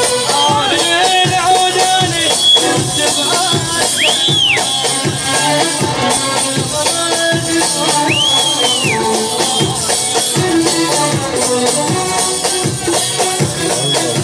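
Instrumental music over a steady beat with a shaker-like rattle. About 4 and 8 seconds in, a high melody note swoops up and back down.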